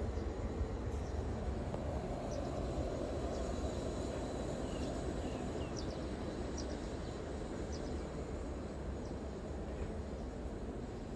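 Steady low outdoor background rumble, with a few faint, brief high chirps from small birds in the middle stretch.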